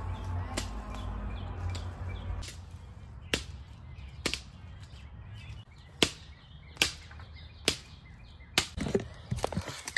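A hand tool chopping into a tree root, about eight sharp strikes, coming roughly once a second in the second half. A low steady hum runs under the first couple of seconds.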